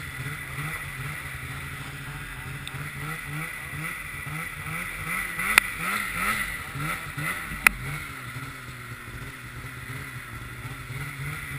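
Polaris snowmobile engine running under way, its pitch rising and falling in quick surges around the middle as the throttle is worked over the trail. Two sharp knocks come about halfway through, two seconds apart.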